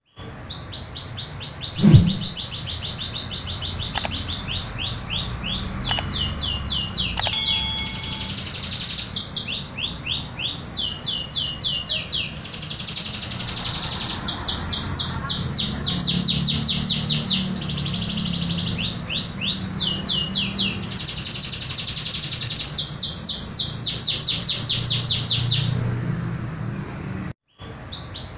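Domestic canary (local Indonesian canary) singing its natural song with no learned fill-in phrases: long rolls of rapid, evenly repeated high notes, switching to a new note pattern every second or few. A dull thump about two seconds in, and the sound cuts out for a moment near the end.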